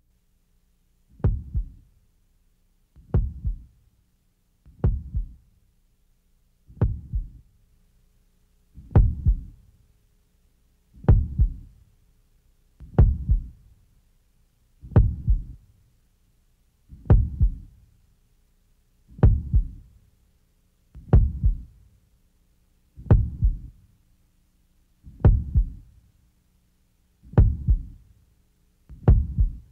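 Heartbeat sound effect: a slow lub-dub of paired low thumps, repeating about every two seconds.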